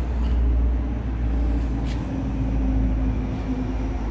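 A steady low rumble of outdoor background noise, with a faint hum about halfway through.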